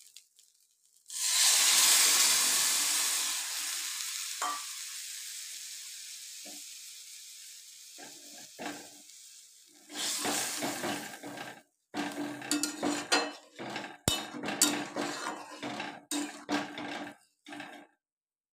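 Water poured into the hot kadai of fried fish and spices hisses loudly about a second in, the sizzle fading away over several seconds. In the second half a metal spatula stirs and scrapes against the metal kadai in short, uneven strokes.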